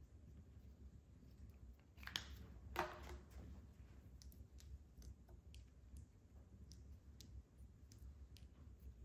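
Faint clicks and taps of wooden base-ten blocks and small unit cubes being picked up and set down on a paper mat, with two louder knocks about two and three seconds in.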